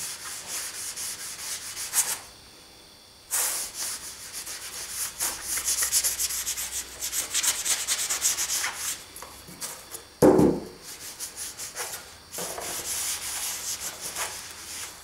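Cloth rubbing quickly back and forth over a painted model roof panel lying on paper, wiping off excess weathering powder, in fast scratchy strokes with a short pause about two seconds in. A single short thump about ten seconds in.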